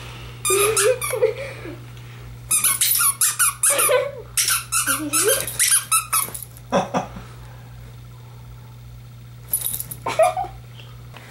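Squeaker inside a plush toy squeaking in repeated short bursts as a dog bites and chews it. There is a lull of about two seconds before a last burst near the end.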